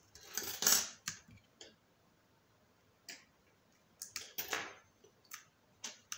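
Short clicks and scrapes of hard plastic and metal as the opened Oukitel WP6 phone body and small repair tools are handled. A louder scraping run comes about half a second in and another cluster around four seconds in, with single sharp clicks between.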